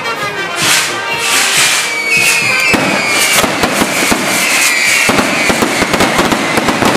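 Fireworks on a castillo, a festival fireworks tower, crackling and popping continuously, with several whistling tones that sink slightly in pitch from about two seconds in.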